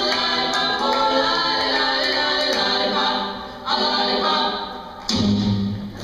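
Choral music with many voices singing together. It drops away briefly about three and a half seconds in and again near five seconds, then a steady low held note comes in near the end.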